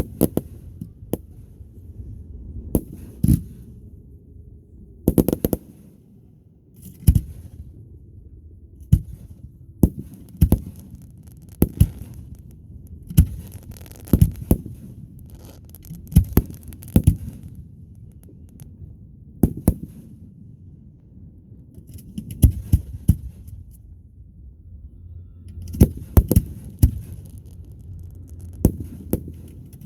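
Aerial fireworks going off: a couple of dozen sharp bangs at irregular intervals, some in quick clusters, over a low rumble.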